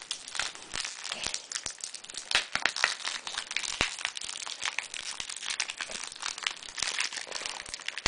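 Shiny plastic baggie crinkling and crackling as it is worked open by hand, with a sharp click at the very end.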